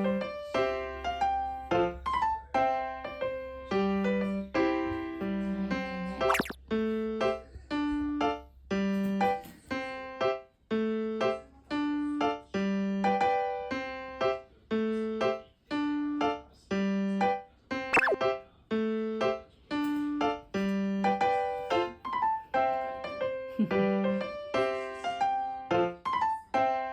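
Background music: a light, bouncy piano tune with short plucked-sounding notes over a regular bass line, with a couple of quick sweeping effect sounds.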